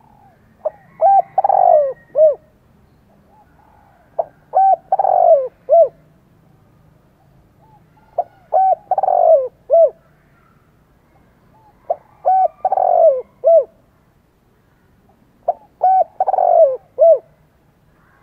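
A male spotted dove cooing its territorial song: five phrases, each a few short coos around a longer middle note, repeated about every four seconds. This is the challenge call a decoy bird uses to draw in rival wild males.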